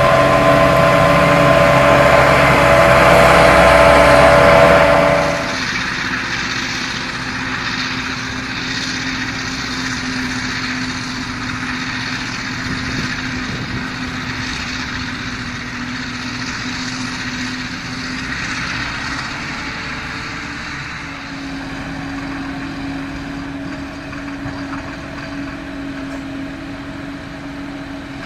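Heavy harvest machinery engines running, with steady tones over a noisy churn. It is loud for about the first five seconds, then drops abruptly to a quieter, steady engine sound.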